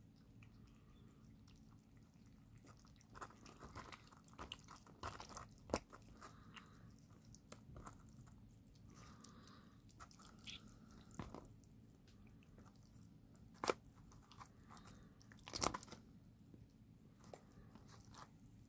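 Kittens chewing liver: faint wet chewing with scattered clicks, and a few sharper clicks about a third of the way in and again near the end.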